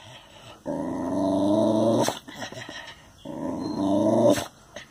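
A dog growling at its own reflection in a mirror, which it takes for another dog. There are two long growls of about a second and a half each, each ending in a short sharp sound.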